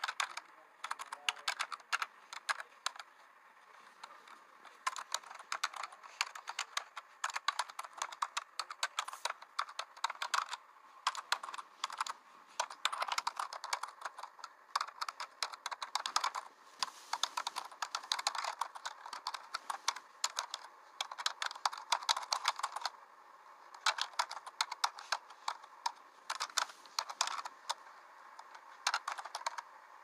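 Typing on a keyboard: fast, irregular key clicks in runs, with short pauses between them.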